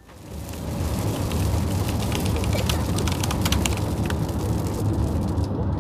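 Steady road and engine rumble inside a moving car's cabin, with many small sharp ticks of rain hitting the window glass. It fades up over the first half second.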